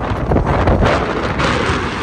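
Strong wind buffeting the microphone: a loud, gusting rush with a deep rumble underneath.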